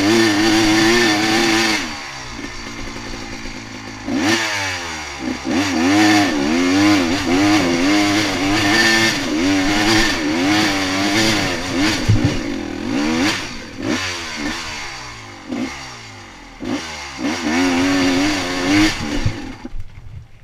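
Dirt bike engine revving up and down over and over as the throttle opens and closes on a rocky trail, with knocks and clatter from the bike over the stones. The engine sound drops away near the end.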